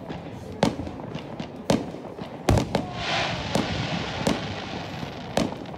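Aerial fireworks shells bursting, a sharp bang about every second, the loudest about two and a half seconds in, with a spell of high hiss around the middle.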